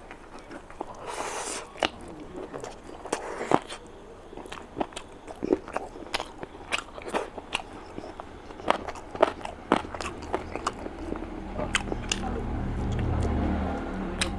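Close-up mouth sounds of a person biting into a curry-coated chicken drumstick and chewing it with rice: a quick run of sharp wet clicks and crunches. A low hum builds near the end.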